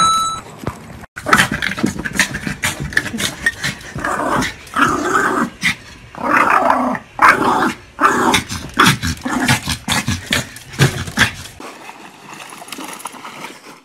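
A dog growling in a long string of short bursts, which stops about two seconds before the end and leaves a quieter hiss.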